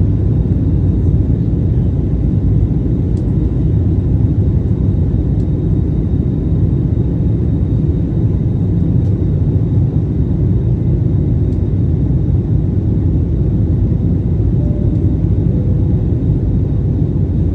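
Steady low rumble of an Airbus A321neo's engines and airflow, heard from inside the passenger cabin during the climb after takeoff.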